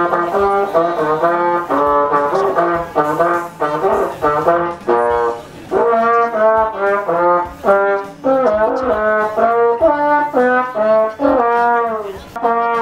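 Plastic trombone played by a beginner: a melody of separate held notes, about two a second, ending in a slide down in pitch.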